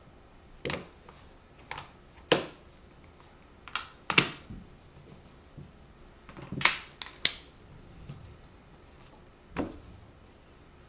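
Magnetic hardwood toy blocks clacking together and onto a tabletop as they are snapped into place: about nine sharp clacks at irregular intervals, with a quick run of three a little before two thirds of the way through.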